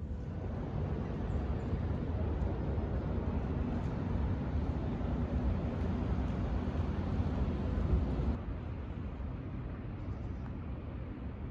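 Steady low rumbling outdoor ambience with no voices or music; about eight seconds in the sound changes abruptly, losing its higher hiss and dropping a little in level.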